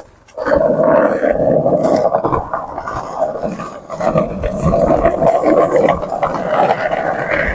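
Skateboard wheels rolling downhill on asphalt: a continuous rough rumble that starts about half a second in, just after a sharp click.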